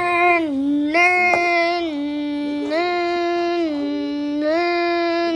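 A child's voice imitating a two-tone hi-lo siren, switching back and forth between a higher and a lower held pitch a little more than once a second.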